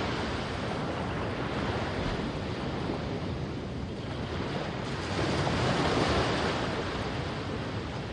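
Ocean waves breaking and washing onto a sandy beach, the surf noise swelling again about five seconds in, with wind on the microphone.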